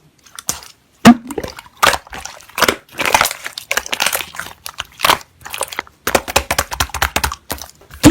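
Pearl slime being squeezed, poked and stretched by hand, giving runs of sticky clicks, pops and crackles with short pauses between.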